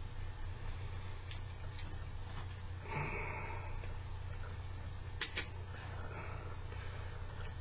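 Small clicks of a key being worked in a Master Lock 2847DAT coupler lock that will not release its key, with two sharper clicks about five seconds in and a short rustling noise around three seconds in, over a steady low hum.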